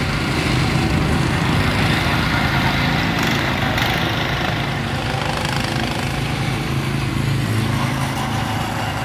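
Small go-kart engines running steadily as several karts drive around the track.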